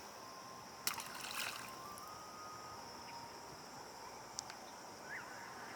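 A small splash about a second in as a released yellow perch drops back into the water, over a steady high chirring of crickets.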